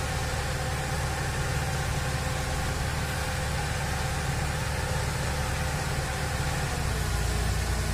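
Claas Lexion combine harvester running steadily while it unloads maize through its spout into the trailer beside it, with the drone of its diesel and the tractor's engine mixed together. The low hum shifts slightly near the end.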